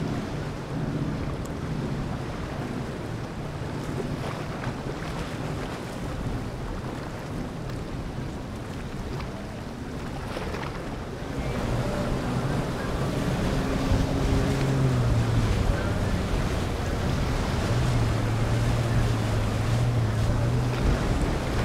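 Motor yacht engines running as the boats cruise past, with water washing in their wake and wind buffeting the microphone. A low engine hum grows louder about halfway through.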